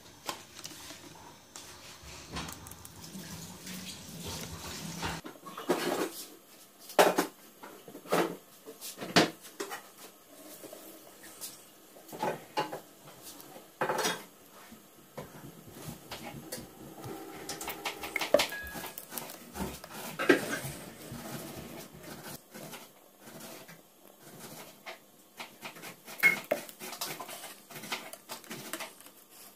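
Plastic syringe and plastic bowl handled while liquid is drawn up and squirted into the cells of a sealed lead-acid battery: irregular sharp clicks and taps of plastic on plastic and on the battery's case, a few seconds apart, with soft handling noise between.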